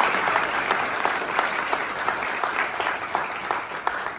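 A roomful of people applauding with many overlapping hand claps, thinning out and fading toward the end.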